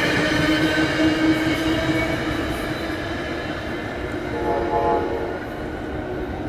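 SEPTA electric push-pull commuter train running away along the track: steady wheel-on-rail noise with a humming drone that fades as it recedes, and a brief horn note about four and a half seconds in.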